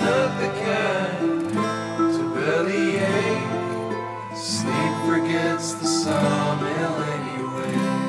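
Instrumental passage of a song, with plucked and strummed acoustic guitar.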